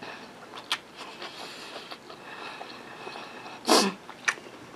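Close-miked chewing of a mouthful of food, with sharp wet mouth clicks and smacks. A short grunt-like throat sound comes a little before the end.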